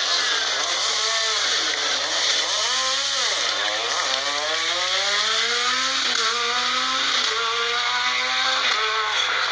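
Rally car engine revving hard as the car accelerates away: the pitch swings up and down at first, then climbs in long pulls broken by two gear changes in the second half.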